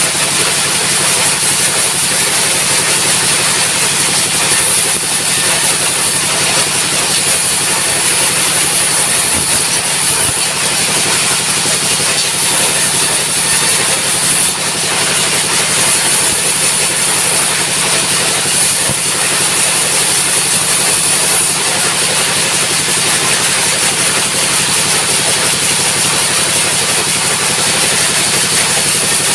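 Engine-driven sawmill running steadily at high throttle, a continuous loud machine noise with a constant high hiss that does not let up.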